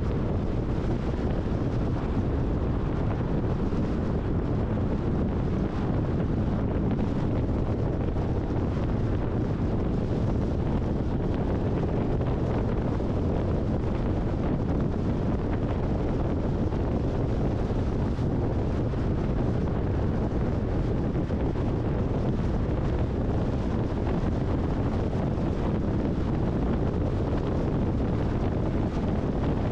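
Steady road and wind noise of a car driving at highway speed: an even low noise with no changes.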